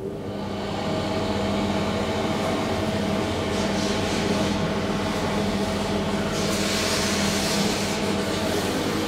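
SMW traction elevator car running in its shaft: a steady mechanical hum with held tones that swells as the car gets under way in the first second. A hissing rush of air joins it about six seconds in and lasts for roughly two seconds.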